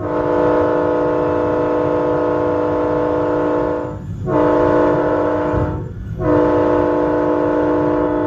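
Diesel locomotive's multi-chime air horn sounding the grade-crossing pattern: a long blast ending about four seconds in, a short blast, then another long blast from about six seconds in. The chord holds a steady pitch.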